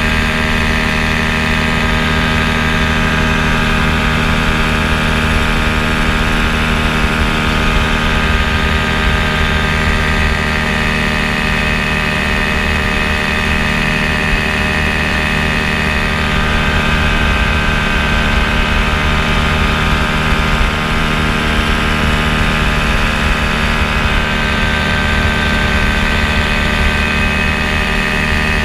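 Kolb FireFly ultralight's engine and propeller running steadily in flight, a constant drone with a slight change in pitch about halfway through.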